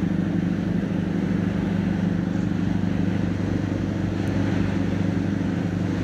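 Ferry's engine running steadily underway, a constant low drone.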